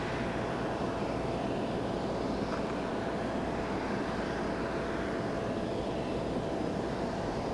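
Steady whine over a wide rumble from a parked jet airliner, as heard on an airport apron.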